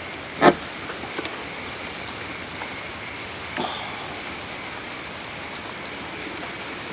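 Crickets chirring steadily at night. About half a second in, one brief loud sound stands out above them, with a fainter one a little past halfway.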